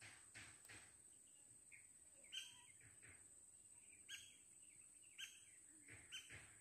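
A bird chirping faintly, four short calls spaced about a second apart.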